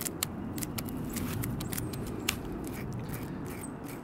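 A dinner fork scraped against the grain of a fish's scales, scaling it: quick, irregular scratchy strokes as the scales flick off, the sharpest one about two seconds in.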